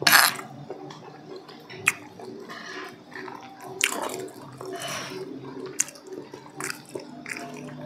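Eating sounds: metal spoons clinking and scraping against earthenware plates every second or two, with wet chewing in between.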